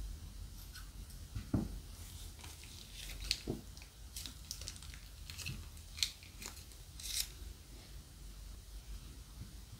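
Scissors snipping the corner off a small plastic zip bag of slime, then the bag crinkling and scattered sharp crackles as the slime is squeezed out into a glass bowl.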